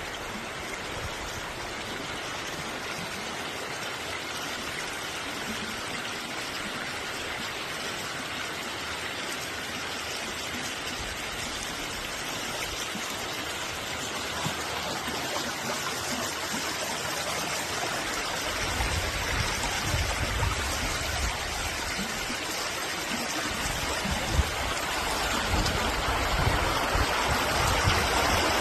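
Stream water rushing, a steady hiss that slowly grows louder, with low rumbling bumps joining in about two-thirds of the way through.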